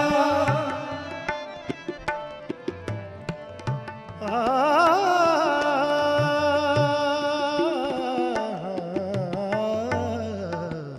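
Sikh kirtan: two harmoniums and a tabla playing, with a man's voice entering about four seconds in on a long, wavering held note that then drops to a lower line.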